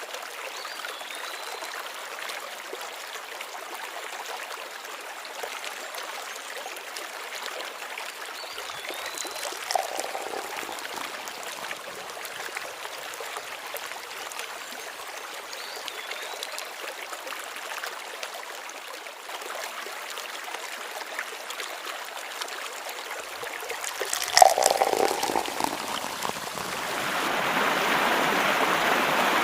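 Creek water flowing steadily over stones, with a few faint high chirps. There is a brief knock about ten seconds in and a louder clatter near the end, after which the water becomes noticeably louder.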